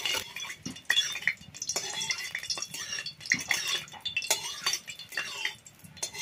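A steel spatula scraping and clinking against the inside of a metal kadai in irregular strokes.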